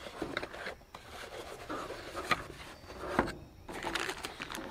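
Handling noise from a small cardboard box being opened: flaps rubbing and a plastic bag of parts rustling as it is lifted out, with a few sharp clicks along the way.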